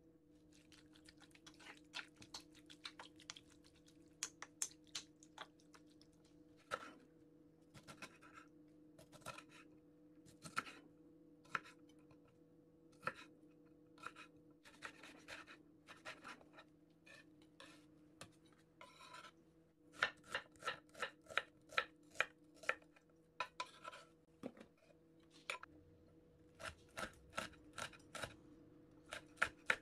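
A kitchen knife cutting on a wooden cutting board: irregular cuts through soft aged kimchi, then quick even chopping of chili peppers at about three strokes a second. Near the start, a metal spoon scrapes and taps in a nonstick pan as chicken is mixed with seasoning.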